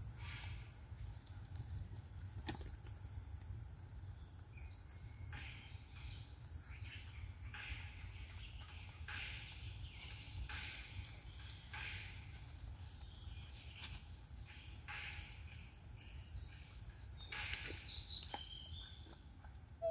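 Outdoor ambience: insects droning steadily at a high pitch over a low rumble, with intermittent rustling, a single sharp click about two and a half seconds in, and a few short chirps near the end.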